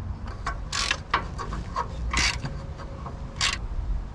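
A new spin-on oil filter being screwed by hand onto its mount under a Toyota Hilux: three short scraping sounds as it turns, with light clicks between them.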